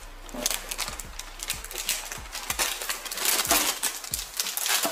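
Crinkling plastic potato chip bag being handled and pulled open: a dense run of sharp crackles and rustles.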